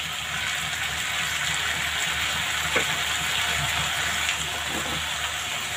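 Steady sizzling of oil in a hot kadhai as chopped tomatoes drop onto frying onions and boiled black chickpeas, with a light tap about three seconds in.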